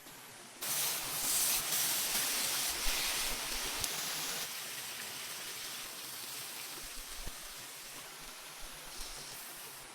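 Steady rushing hiss that starts about half a second in and slowly fades, with a few faint ticks.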